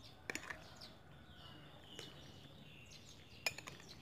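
Metal spoon clinking against a glass bowl while mixing raw beef: a few clinks just after the start and again near the end. Birds chirp in the background.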